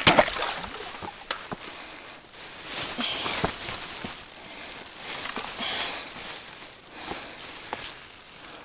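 Footsteps and scuffs on rock as a hiker climbs, with irregular knocks and the swell of breathing in between.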